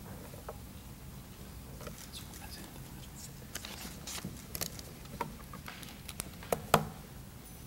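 Quiet room noise with a low steady hum and scattered light clicks and clinks, a few sharper ones in the second half, the loudest about a second before the end.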